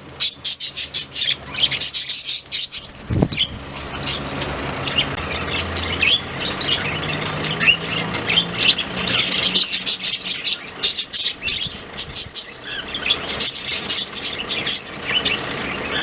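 Budgerigars chirping and chattering busily, many short high calls overlapping, with a single thump about three seconds in.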